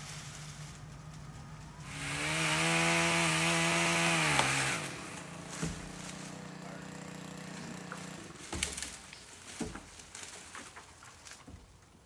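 Chainsaw idling, then revving to full throttle for a cut of about two and a half seconds starting about two seconds in. Its pitch falls as it drops back to idle, and it goes quiet about eight seconds in. A few sharp thumps follow near the end.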